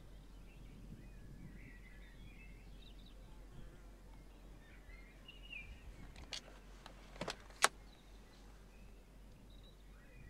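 Faint birdsong in the background, and a quick run of sharp clicks starting about six seconds in, the last one the loudest: a hand handling the coupe's front seatbelt and its chrome belt guide arm.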